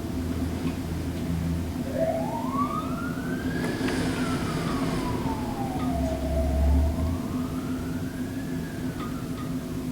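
Emergency vehicle siren wailing in slow rising and falling sweeps, two up-and-down cycles over a steady low hum, with a brief low rumble about two thirds of the way through.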